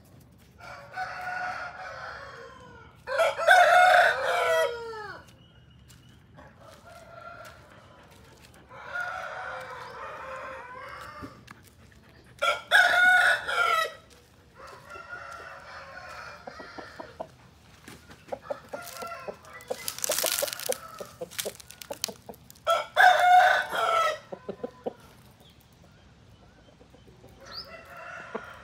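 Aseel roosters crowing in turn, about seven crows of one to two seconds each. Some are loud and close, others fainter. A brief rushing noise comes between crows past the middle.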